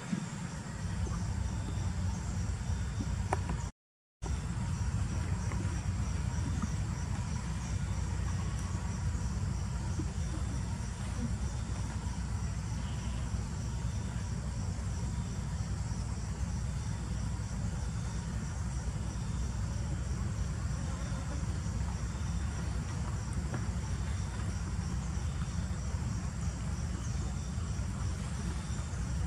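Insects calling in a forest: a high-pitched, evenly repeating trill over a steady low rumble. The sound cuts out completely for a moment about four seconds in.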